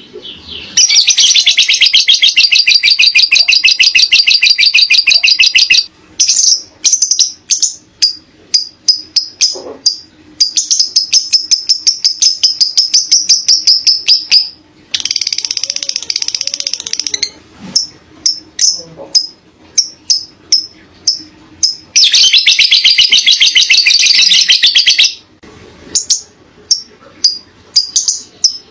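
Lovebird chattering in long, rapid trills (the 'ngekek panjang' call), each lasting several seconds, with runs of short sharp chirps between them.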